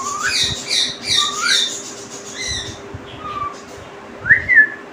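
Pet green parakeet chattering in quick squawky chirps, about three or four a second, with short rising whistles among them. The chirps stop a little past halfway, and the loudest sound is a rising then falling whistle near the end.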